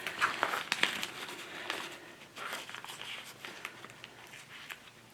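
Packaging crinkling and rustling as a small parcel is handled and pulled at to open it, with scattered crackles and clicks that thin out toward the end.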